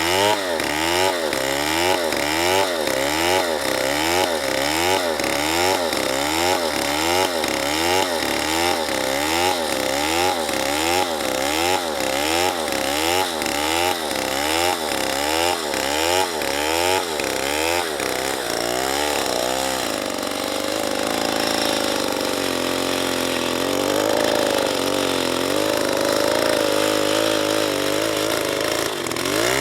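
Chainsaw cutting wood, its engine speed rising and falling about twice a second in a steady rhythm. After about 18 seconds the engine note steadies and wavers only slowly.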